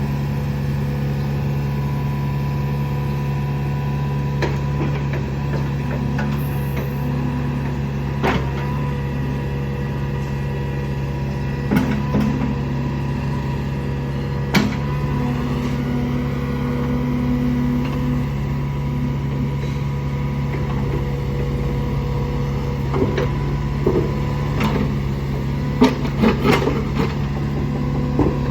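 Komatsu PC45R-8 mini excavator's four-cylinder Komatsu 4D84E-3D diesel engine running steadily, with scattered sharp knocks, several of them close together near the end.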